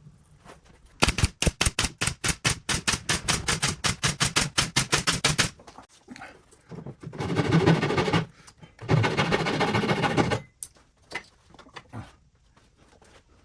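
Workshop tool sounds: a rapid run of sharp mechanical knocks, about seven a second for some four seconds, then two noisy power-tool bursts of a second or so each.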